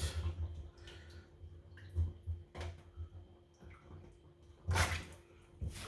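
Water splashing and dripping in a few short bursts as a raw chicken is washed by hand in a bowl of cold water, the loudest near the end, over a faint steady hum.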